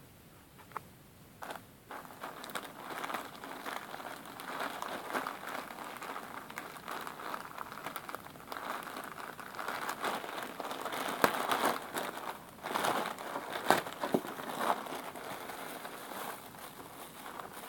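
Clear plastic zip-lock bags crinkling and rustling as they are handled and opened, starting about two seconds in and going on almost without a break, with a few sharp clicks near the middle.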